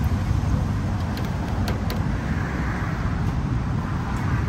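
Steady road traffic noise with a low rumble, and a few light clinks of a spoon against a bowl about a second or two in.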